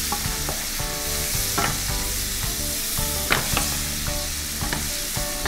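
Sliced onions frying in hot oil with spices, sizzling steadily while a wooden spatula stirs them, scraping and knocking against the pan a few times. The onions are being cooked down until soft and brown.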